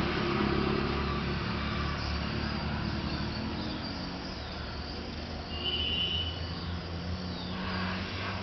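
A low mechanical drone, engine-like, shifting slightly in pitch under a steady hiss, with a short high tone about six seconds in.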